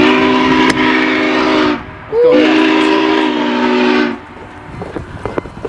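Steam locomotive whistle blowing two long, loud blasts of about two seconds each, several steady tones sounding together as a chord; the second blast opens with a brief slide in pitch. The whistle stops about four seconds in.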